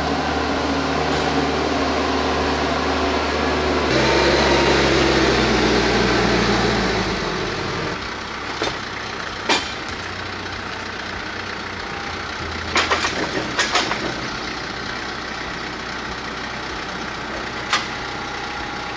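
TYM T474 compact tractor's diesel engine running, louder for a few seconds and then dropping back to a steady idle about seven seconds in. Several sharp knocks come in the second half.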